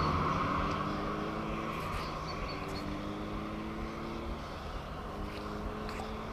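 A distant engine hum that fades away and then holds steady and low, with a few faint light clicks.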